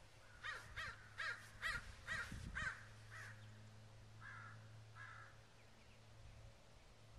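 Crow cawing: a quick run of about seven caws in the first three seconds, then two softer calls.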